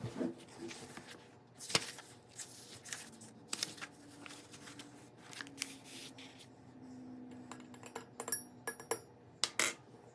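Scattered rustles and light clicks of small objects being handled, with a few sharper clicks near the end.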